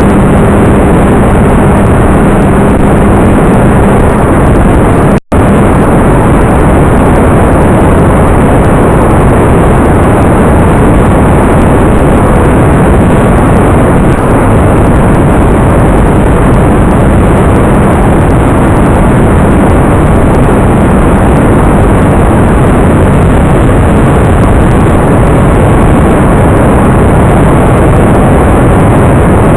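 Loud, steady rushing noise from an FPV model aircraft in flight, with a low hum over the first few seconds; the sound cuts out for an instant about five seconds in.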